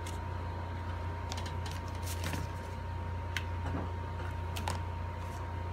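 Stiff cardstock petals being handled and pressed into place, giving scattered light crackles and taps, mostly between about one and five seconds in, over a steady low hum.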